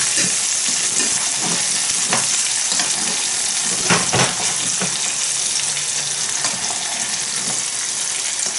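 Dover sole sizzling steadily in groundnut oil and melting butter in a non-stick frying pan. A metal spoon scrapes and taps the pan now and then as the butter is spooned over the fish.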